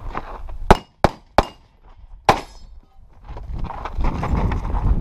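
Four pistol shots from an Open-division competition pistol: three in quick succession about a third of a second apart, then a fourth about a second later. Near the end comes a rustle of footsteps on gravel as the shooter moves to the next position.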